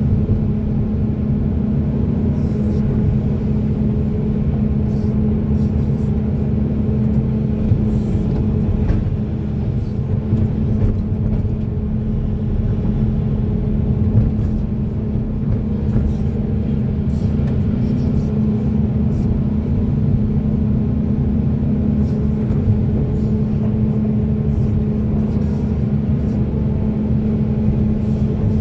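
Hydraulic excavator's diesel engine running steadily under working load, a continuous low drone with faint scattered clicks.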